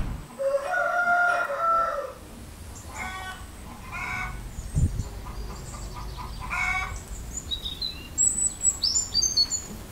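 A rooster crows once, one long call in the first two seconds, followed by a few short chicken calls. A dull knock comes about five seconds in, and small birds chirp near the end.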